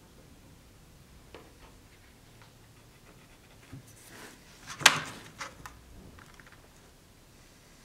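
Workbench handling: a few faint taps and rustles, then a sharp clack just before five seconds in as a steel ruler is set down on the wooden scabbard blank, with a few lighter ticks after it.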